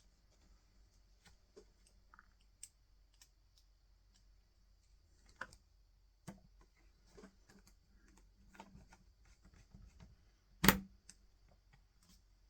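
Small, scattered clicks and ticks of a precision pentalobe screwdriver and tiny screws working on a MacBook Air's bottom cover, with one much louder sharp click near the end.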